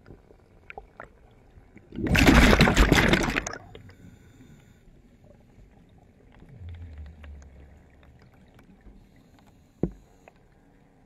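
Water noise heard underwater: a loud rushing swirl for about a second and a half, then a low hum from about six to eight seconds in, and a single sharp knock near the end, among faint scattered clicks.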